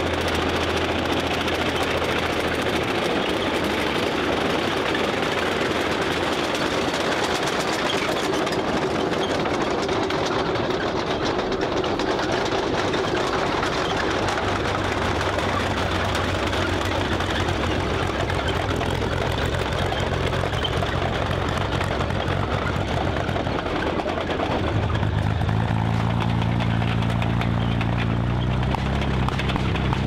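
The Tiger II heavy tank's Maybach HL 230 V-12 petrol engine runs as the tank drives past. Its note rises in steps near the end.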